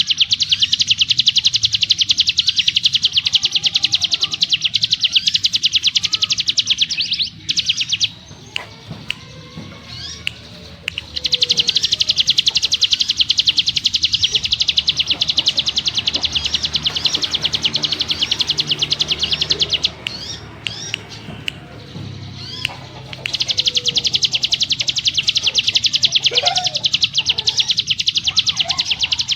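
Hill prinia (ciblek gunung) singing its 'ngebrem' song: three long, very fast, high trills of tightly packed repeated notes, each several seconds long, with short scattered chirps in the pauses between them.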